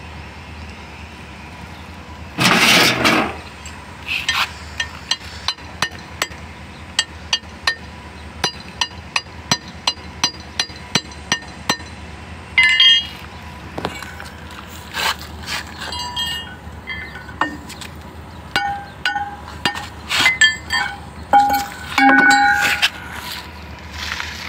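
Steel hand tools clinking and scraping against the steel of a Kobelco excavator's track motor and track links. A rasping clatter about two and a half seconds in, then a long run of sharp ringing clinks about twice a second, and near the end a few irregular clinks with ringing notes.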